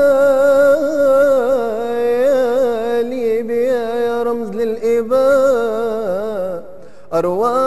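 A man singing a long, ornamented melisma of an Arabic nasheed, with quick vocal turns and vibrato. About seven seconds in the line fades and a new phrase slides upward.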